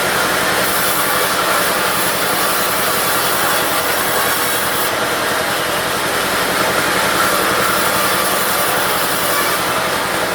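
Diesel-driven bandsaw cutting through a teak log. The hiss of the blade in the wood comes in about half a second in and holds until near the end, over the steady running of the diesel engine.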